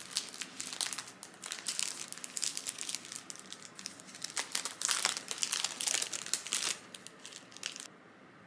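Thin plastic sandwich wrapper crinkling as it is peeled off by hand, in many quick crackles that stop about eight seconds in.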